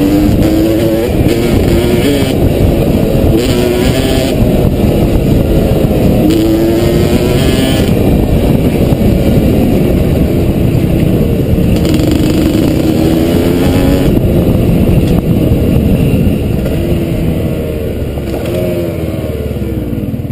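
Off-road dirt bike engine running under way on a dirt track, its pitch rising and falling with the throttle. The engine note eases off over the last few seconds as the bike slows.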